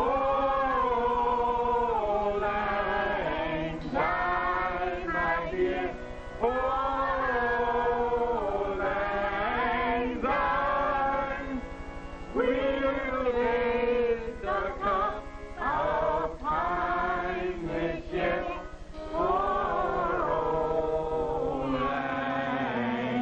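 A group of voices singing a song together in phrases of a second or two, over a low steady hum that stops near the end.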